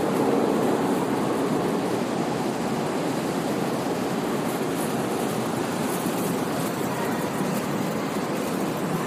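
Steady rumbling noise of an underground metro station, easing slightly over the seconds.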